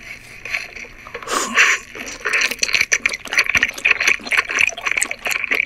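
Close-miked mukbang chewing of cooked octopus: wet, sticky mouth sounds with many rapid clicks.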